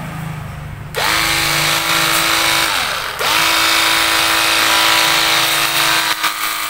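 Cordless battery-powered pressure washer spraying: the pump motor's steady whine together with the hiss of the water jet. It starts about a second in, winds down briefly near the middle, then spins back up and runs on.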